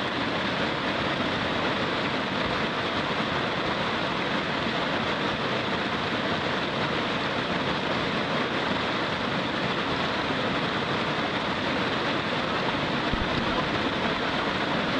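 River whitewater rapids rushing steadily, a constant churning of water with no letup.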